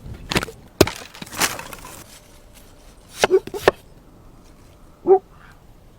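A few sharp knocks and cracks at irregular intervals, with a short scraping burst after the first ones and a brief pitched sound near the end.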